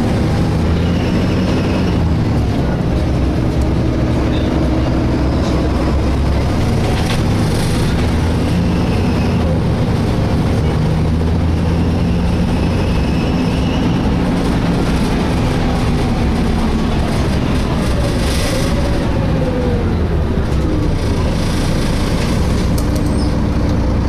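Cabin noise of a Volvo B7LA Wright Eclipse Fusion articulated bus on the move: a steady low engine and road rumble whose pitch drifts up and down, with faint, short high-pitched squeals coming and going.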